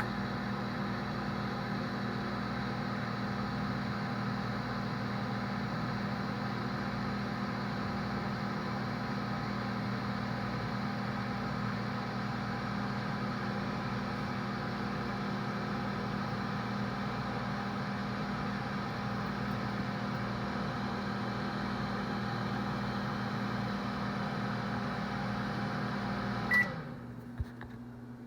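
Microwave oven running with a steady hum. It shuts off near the end with a short beep at the end of the heating cycle, followed by a single click.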